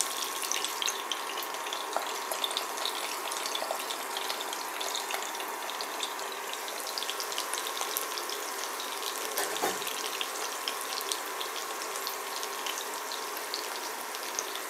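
Breaded chicken nuggets frying in shallow vegetable oil in a ceramic pan: a steady, dense sizzle and crackle, with a faint steady tone underneath.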